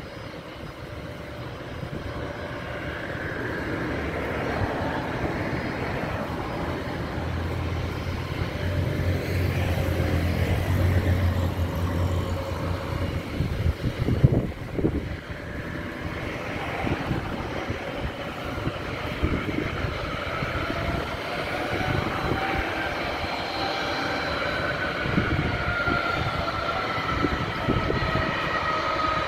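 Jet airliner engines running on an airport apron: a steady rumble with a whine, growing louder over the first ten seconds. There is a single sharp knock about fourteen seconds in, and near the end a high whine glides slowly down in pitch.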